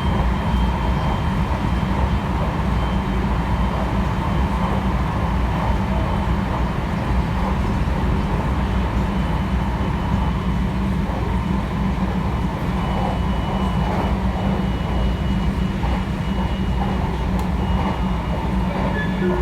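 Inside a JR West 223 series electric train running between stations: a steady rumble of wheels on rails and running gear, heaviest in the low end, with a faint high whine over it.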